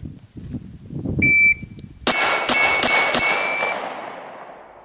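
An electronic shot timer beeps once. Just over half a second later a 9mm PDW fires four quick shots, about three a second, and the steel targets ring on after the hits and fade out.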